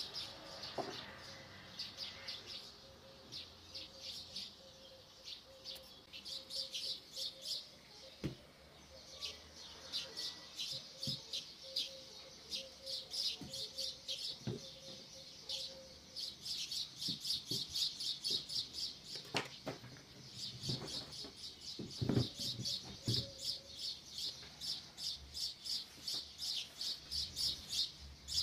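Small bird chirping in quick, repeated high notes, several a second, with short pauses. A few soft knocks as courgettes are set down on a wooden board.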